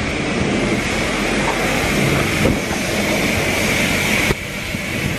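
High-pressure car-wash wand spraying water: a steady hiss with a high whine running through it, dipping slightly in level about four seconds in.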